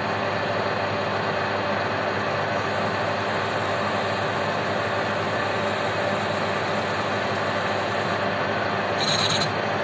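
Metal lathe running fast, a steady mechanical drone with many steady tones, spinning a gasket sheet against a craft-knife blade in the toolpost to cut a round oil-filter canister seal. The drone starts suddenly at the opening, and a brief higher hiss comes in about nine seconds in.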